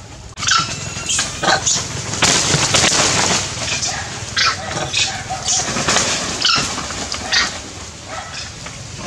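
A dog barking and whining, mixed with repeated short crackling rustles of dry palm-leaf thatch.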